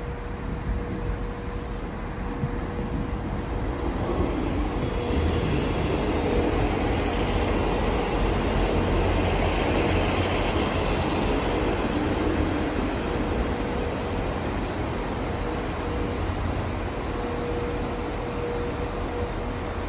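A train moving past at a station platform, its noise building to a peak about halfway through and then easing off, over a steady hum.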